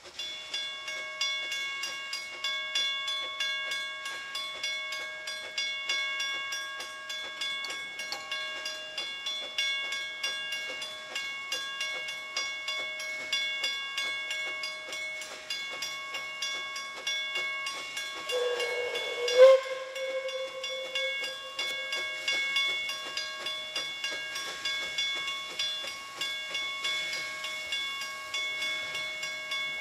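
Level-crossing warning bell ringing over and over at an even pace. About two-thirds of the way through, the approaching Puffing Billy narrow-gauge steam locomotive 12A gives one short blast on its five-chime steam whistle, starting with a rush of steam hiss; this blast is the loudest sound.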